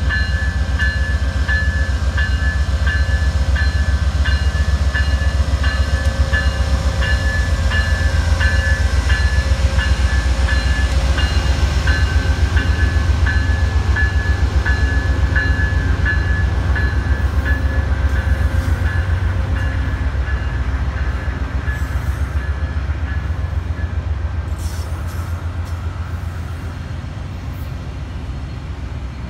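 VIA Rail P42DC locomotive's 16-cylinder diesel engine pulling a passenger train away from a station, with a heavy rumble and a bell ringing about one and a half times a second for the first twenty seconds. The engine sound then fades as the passenger cars roll past with clicks from the wheels.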